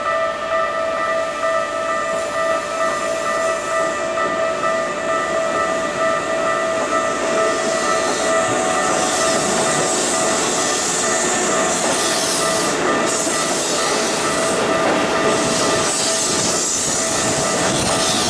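Railroad crossing warning bell ringing its steady repeating tone. About eight seconds in, the rushing and rumbling noise of a train passing over the crossing builds up under the bell.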